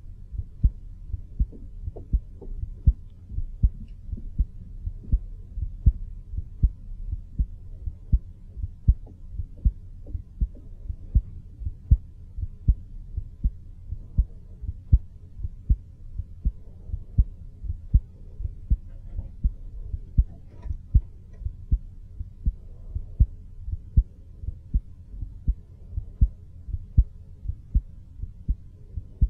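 A human heartbeat picked up through the air by a studio microphone about half a foot from the chest: a steady, even rhythm of dull low thumps over a faint low hum.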